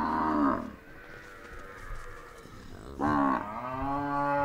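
Cattle mooing: one low call trails off about half a second in, then a second, longer moo starts about three seconds in.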